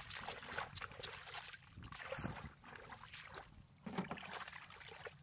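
Irregular splashing and sloshing of shallow muddy floodwater as a person's hands sweep and grope through it for fish buried in the mud, with feet shifting in the water.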